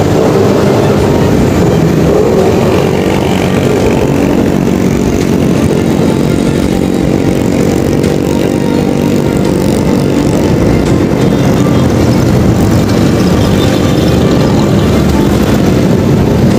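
Engine of the vehicle carrying the camera, running steadily as it travels along a city road, with constant road and traffic noise.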